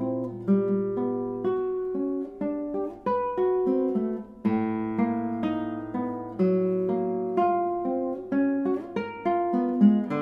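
Solo classical guitar playing: a line of plucked single notes and chords over long-held low bass notes.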